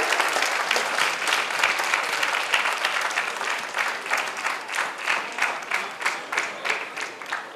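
Audience applauding, dense at first and thinning to scattered, separate claps as it dies away.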